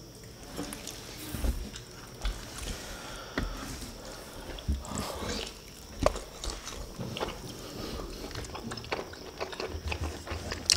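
Close-up eating sounds from two people eating sauced chicken and rice by hand: wet chewing and mouth smacks, with irregular small clicks throughout.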